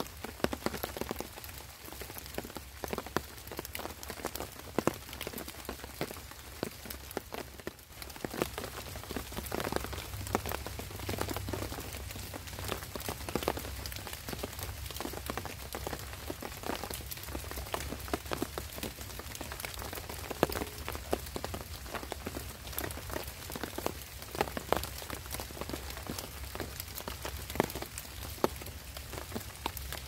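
Rain falling on a camp tarp: a dense, irregular spatter of drop hits over a steady hiss of rain.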